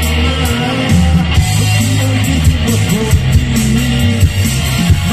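Live band music played through a PA: electric bass and electric guitar to the fore over drums with regular cymbal strokes.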